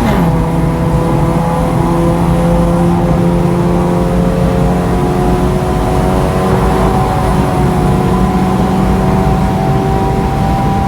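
Honda Civic FD's engine under way: its note drops in pitch just at the start, then holds a steady drone that rises slowly as the car gains speed. No pops or crackles are heard.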